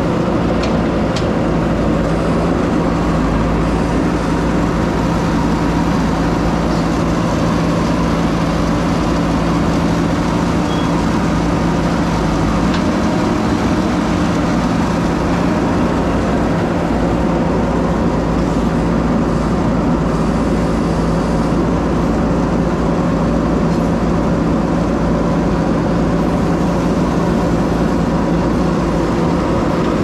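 JCB 3DX backhoe loader's diesel engine running steadily while the backhoe arm digs, heard close up from beside the machine.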